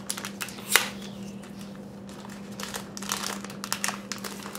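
Foil dog-tag pack wrapper crinkling and tearing as it is pulled open by hand, in a string of short crackles with one sharper one about three-quarters of a second in and more near the end.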